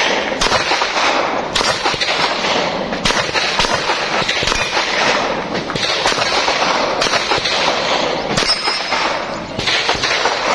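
A series of handgun shots fired in a practical shooting stage, single sharp cracks spaced about one to two seconds apart.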